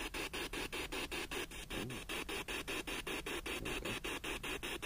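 A spirit box, a modified speaker sweeping through radio stations, hissing with static chopped into rapid even pulses, about eight a second.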